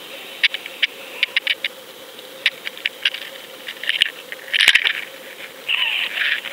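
Underwater sound picked up by a fishing camera: a string of irregular sharp clicks and ticks over a faint steady hum, with bursts of rushing water noise about halfway through and again near the end.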